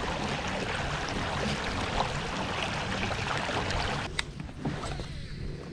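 Kayak on open water: a steady rushing noise of water and wind on the microphone, cutting off about four seconds in to a quieter hiss of lapping water with a few sharp clicks.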